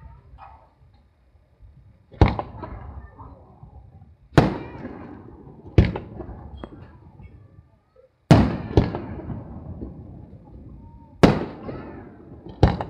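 Aerial firework shells bursting: about seven sharp bangs at irregular intervals, two of them in quick succession past the middle, each trailing off in an echoing rumble.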